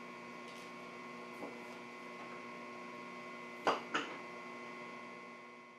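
Steady electrical mains hum, with two short sharp clicks close together a little before the fourth second.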